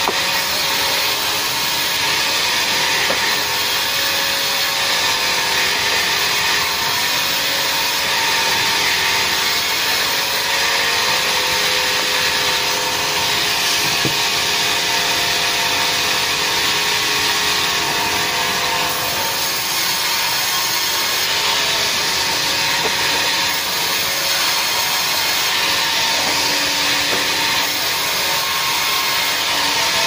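Sawmill band saw running steadily and cutting timber as a long slab is fed through the blade: a continuous, even sawing noise.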